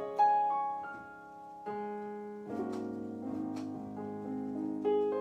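Slow background music of held chords, a new chord struck every second or two.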